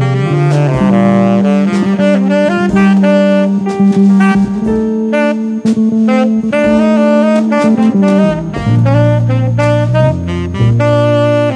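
Instrumental music: a quick melody line of changing notes over a sustained bass line, with drum hits throughout.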